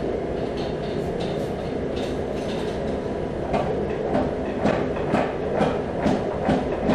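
Mechanical trip hammer running and striking a red-hot damascus shotgun-barrel tube, over a steady machine drone. The blows start about halfway through and come evenly, about two a second, as the soft wrought-iron tube is forged down in diameter.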